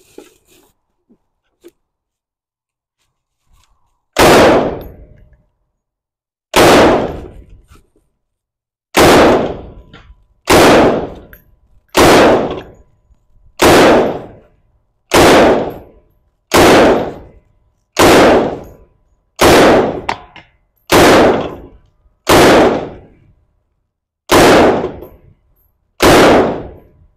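Semi-automatic PKM belt-fed rifle firing 7.62x54R brass-case heavy ball, one shot at a time, about fourteen shots roughly a second and a half apart starting about four seconds in. Each shot is followed by a ringing echo that dies away over about a second.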